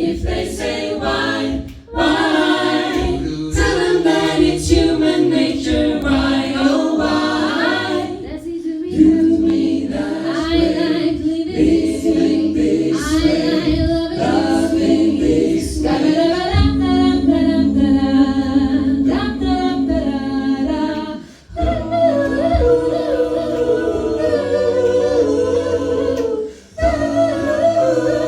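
A cappella vocal group singing wordless harmonies with no instruments, the voices holding chords with short breaks about three quarters of the way through and again near the end.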